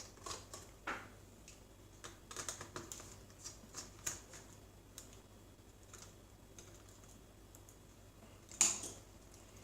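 Faint, scattered clicks and taps from a screwdriver removing the screws that hold a laptop keyboard, and the keyboard's keys and plastic being handled, with a louder clack near the end.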